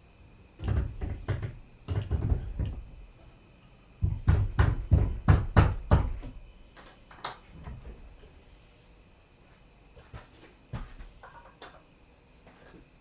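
Wooden door being handled and set onto its hinges in a new frame: clusters of knocks and thumps, the loudest a quick run of blows about four seconds in, then fainter scattered clicks.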